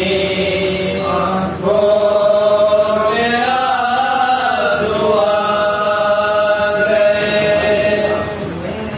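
Men's voices chanting a salaam, a devotional elegy for Husain, in long drawn-out notes. A new, louder phrase begins about one and a half seconds in, rises and falls in pitch in the middle, then holds a long note before easing off near the end.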